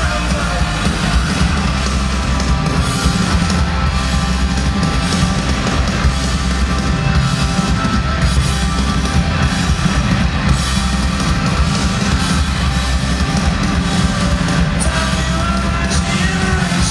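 Rock band playing loud live with electric guitars, bass and a drum kit, heard from among the audience at a festival stage.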